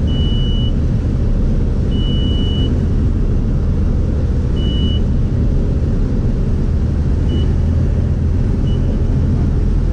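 Light aircraft's engine and propeller droning steadily, heard inside the cockpit. Over the drone a high-pitched cockpit warning beep sounds three times for about half a second each, then gives two brief blips near the end.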